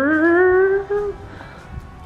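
A woman's voice singing or humming one rising, drawn-out note for about a second, like a little fanfare. Quieter background music follows.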